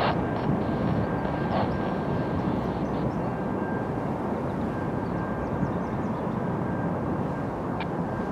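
Steady low rumble of distant vehicle noise, with a faint steady high tone and a few light clicks over it.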